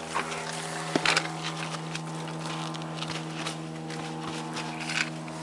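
Scuffing footsteps and scrapes on rock and gravel during a steep descent, a few separate scuffs over a steady low hum.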